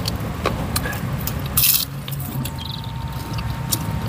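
Close-up eating sounds: wet chewing, lip smacks and mouth clicks from people eating rice and grilled chicken by hand, with one brief crisp noise about a second and a half in. A steady low rumble of road traffic runs underneath.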